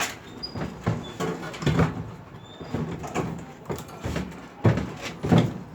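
Irregular knocks and clunks as a motor is worked into place inside an LG washing machine, the loudest a little before the end.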